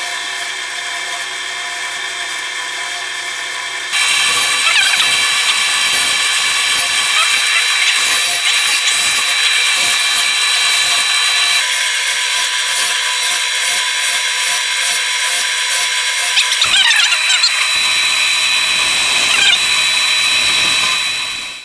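Wood lathe running with a steady motor whine; about four seconds in a turning tool bites into the spinning wooden mallet handle, adding a loud continuous scraping hiss over the whine, until it cuts off abruptly at the end.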